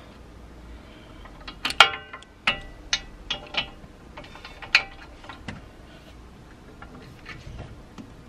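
Hand socket wrench clinking and clicking on the steel bolt of a Hardrace roll centre adjuster as the bolts are checked for tightness by hand. There are a handful of sharp, irregular metallic clinks with a short ring, the loudest about two seconds in.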